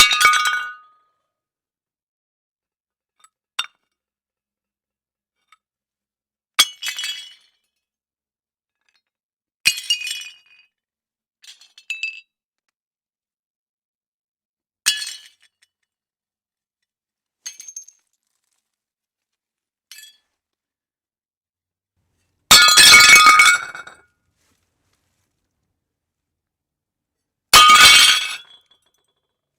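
Plates smashing: a series of separate breaking crashes with sharp ringing shards, each followed by silence, about ten in all. The two longest and loudest come near the end.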